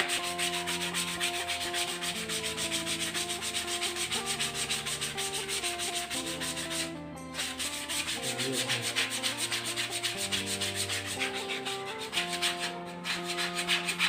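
Sandpaper rubbed by hand over a carved pelantang-wood duck decoy in quick back-and-forth strokes, a dry scratchy rasp, with a brief pause about seven seconds in.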